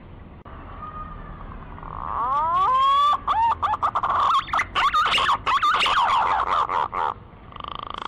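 Punai (green pigeon) lure call: a run of wavering whistled notes that starts faint, swells about two seconds in into loud swooping, quavering phrases, and breaks off about seven seconds in.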